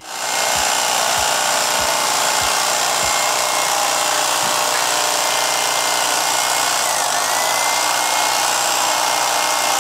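Electric bread knife running steadily, its motor buzzing as the serrated blades saw through soft foam, with faint low knocks about every half second in the first few seconds.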